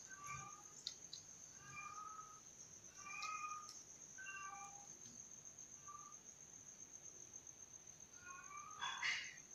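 Young kittens mewing while nursing: about six short, thin mews a second or so apart, the loudest just before the end. A steady high cricket trill runs underneath.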